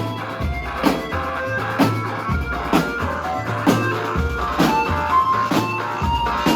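Music with a strong beat about once a second over a stepping bass line and a melody.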